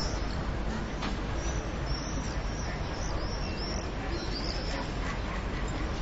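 Courtyard ambience: a steady low rumble of distant traffic, with swallows twittering in a run of short, high chirps from about a second and a half to five seconds in.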